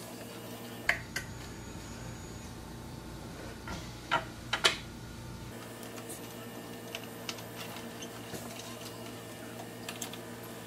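Sharp clicks and taps of metal crib bolts and wooden crib parts being handled and fitted by hand. There are a couple of clicks about a second in and the loudest ones a little past four seconds, then lighter ticks near the end, over a steady low hum.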